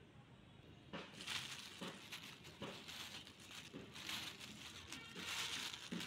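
Thin plastic carrier bag crinkling and rustling as a hand pushes garbage down into it, starting about a second in and swelling and fading several times.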